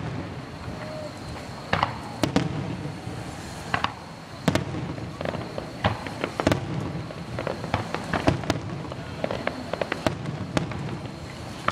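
Aerial fireworks shells bursting in an irregular string of sharp bangs, some singly and some in quick clusters, over a faint steady high tone.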